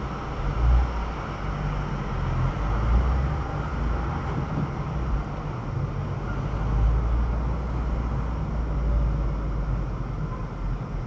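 Low, steady rumble of a car's engine and tyres heard inside the cabin, swelling and easing every few seconds.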